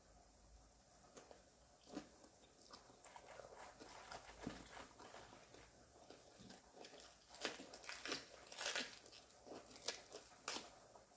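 A person chewing a mouthful of crisp green papaya salad close to the microphone, with wet mouth clicks and crunches. The crunching gets louder and comes in quick bunches from about seven seconds in.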